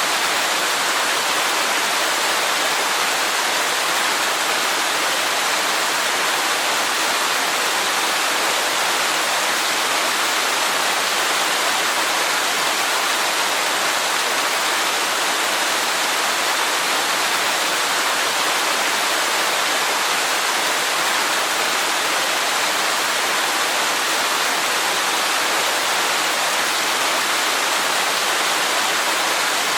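Waterfall pouring: a steady, unbroken rush of falling water, bright and hiss-like with little low rumble, with no change in level throughout.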